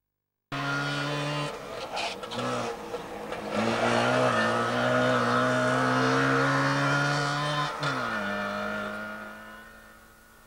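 Trabant 601's two-cylinder two-stroke engine revving hard as the car drives off, holding a steady high note. Its pitch shifts a few times and drops about eight seconds in, then it fades away as the car draws off.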